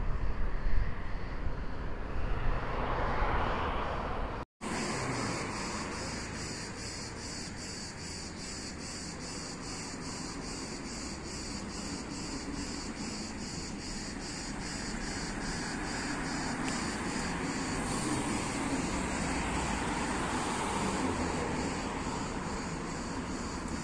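Street ambience of road traffic, with louder low noise in the first few seconds. After a brief dropout about four and a half seconds in, insects chirp in a steady high, evenly pulsing chorus over the traffic noise, which swells for a few seconds near the end.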